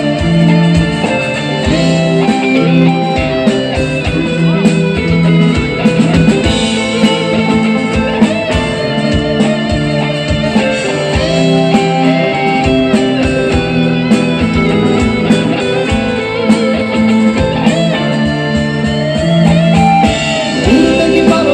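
Live rock band playing an instrumental passage, with an electric guitar lead bending notes over bass and steady drums, without vocals.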